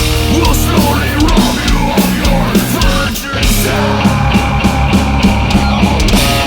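Heavy metal band playing loudly: distorted electric guitar, bass guitar and drums.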